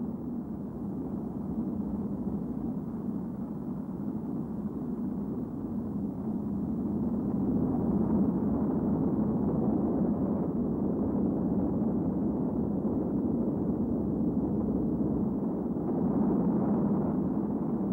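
Saturn V rocket's first-stage engines firing at liftoff: a steady, muffled, deep rushing noise that grows louder about seven seconds in.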